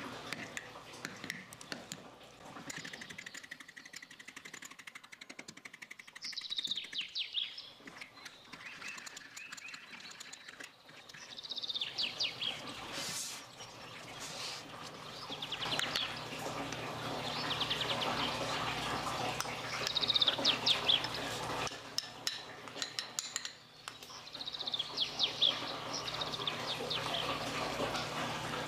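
Small birds chirping in short trilled phrases every few seconds, with a few soft knocks underneath.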